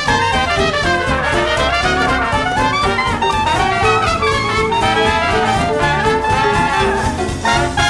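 Background music, with a brass-led melody over a steady beat.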